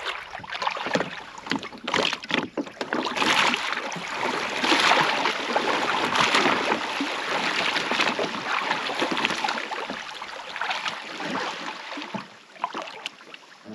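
Water splashing and sloshing as a boat is pushed by hand through shallow water until it floats. The sound is loudest in the middle and thins out near the end, leaving scattered knocks and splashes.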